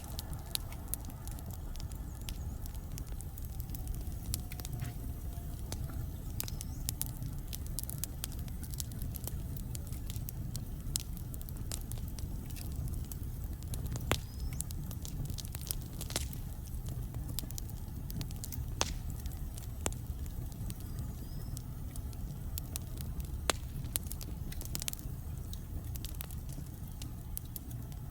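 Wood fire burning in a fireplace: a steady low rumble with irregular sharp crackles and occasional louder pops from the logs.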